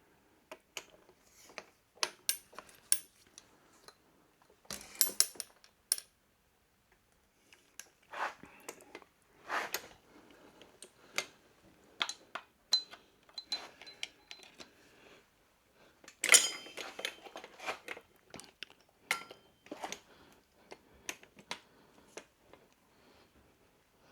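Hand tools clinking and knocking on metal in scattered short clicks, some ringing briefly: a socket and wrench being fitted to and worked on a motorcycle engine's flywheel nut.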